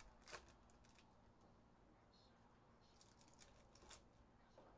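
Near silence with a few faint rustles and ticks, as a foil trading-card pack is torn open and the cards are set down.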